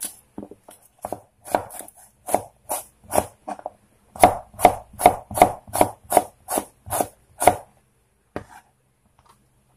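Kitchen knife slicing a peeled onion on a wooden cutting board: a run of sharp knife strikes on the board, loose at first, then settling into a steady rhythm of about three cuts a second from about four seconds in, with a last single cut near the end.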